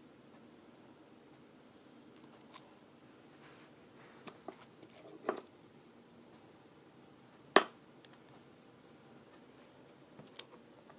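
Quiet room with a few scattered clicks and taps of small objects being handled, the sharpest click about seven and a half seconds in.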